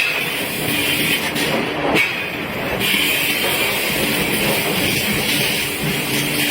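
Steady, loud noise of industrial forging and drilling machinery running, with a low hum that comes and goes and a sharp change about two seconds in.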